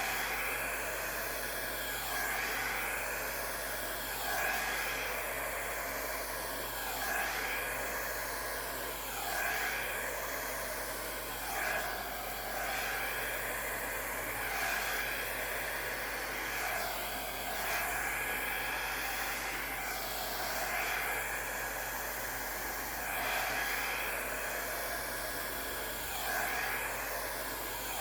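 Mini travel hair dryer running on its low, cool setting with a steady rushing whoosh. The sound swells and dips every two to three seconds as its airflow pushes fluid acrylic paint across a canvas.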